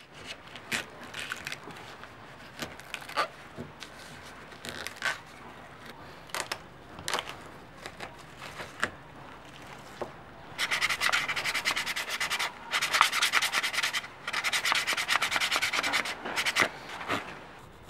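Dry coconut husk fibre being pulled and torn off the shell by hand, with scattered short crackles and scrapes. From about ten seconds in, a knife blade scrapes rapidly across the hard coconut shell in quick, continuous strokes, pausing briefly twice, to clean the shell bare.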